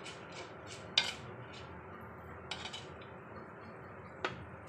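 A spoon clicking and scraping against a clay kadhai while stirring whole spices and dried red chillies frying in oil, about ten short knocks, the loudest about a second in, over a steady low hiss.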